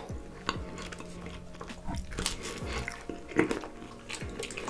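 Close-miked mouth sounds of a man eating raw honeycomb: sticky chewing and smacking with many scattered sharp clicks.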